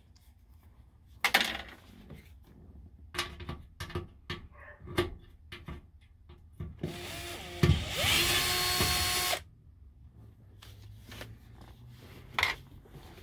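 Cordless drill with a screwdriver bit runs steadily on a screw for about two and a half seconds, starting about seven seconds in and cutting off abruptly. Before it come scattered clicks and taps of tools and parts being handled.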